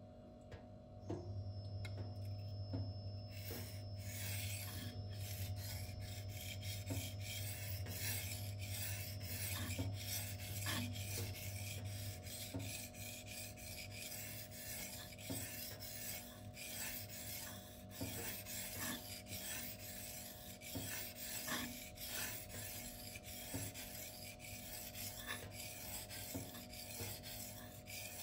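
Steel knife edge being stroked back and forth across a Shapton water stone: a gritty scraping hiss of repeated sharpening strokes, starting a few seconds in.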